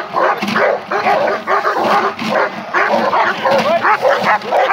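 Several German Shepherds barking in rapid, overlapping barks, several a second, without a break.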